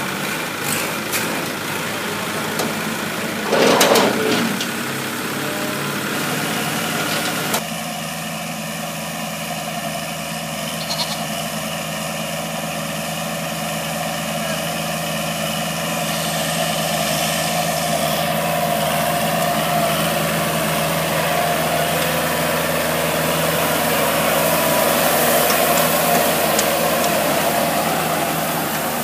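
Kubota L5018 tractor's diesel engine running steadily, with a brief loud call about four seconds in. About eight seconds in the sound changes abruptly to the tractor working a rear rotary tiller through dry soil, engine running steadily under load.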